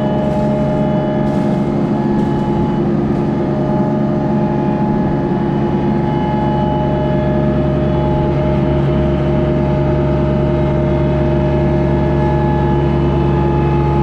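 Tractor engine running at a steady, constant speed.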